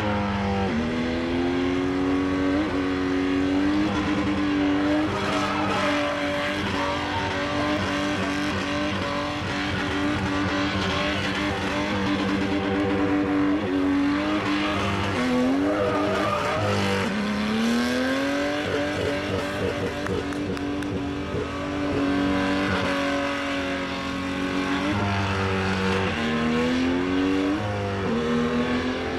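SUV engine held at high revs as the vehicle spins in smoky circles, the tyres spinning and squealing on the pavement. The revs dip and climb back again right at the start, about halfway through, and near the end.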